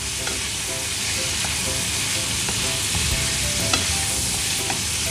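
Diced raw pork sizzling steadily in hot oil in a non-stick pan, stirred with a wooden spatula, at the start of stir-frying.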